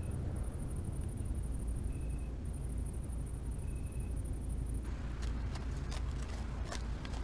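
Film soundtrack ambience: a steady low rumble under a high, continuous chirring hiss with brief gaps and a few short high tones. About five seconds in, with a change of scene, irregular sharp clicks and ticks begin.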